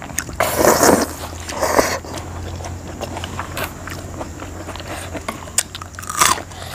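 Close-up mouth sounds of eating momo dumplings and noodles: biting and chewing, loudest in the first two seconds and again near the end.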